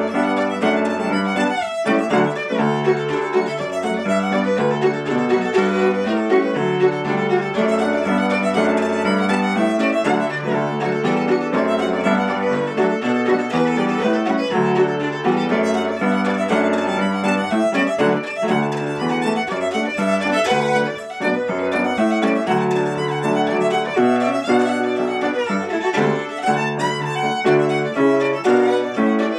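Fiddle playing an Irish reel, a steady run of quick notes, with accompaniment in lower notes beneath it.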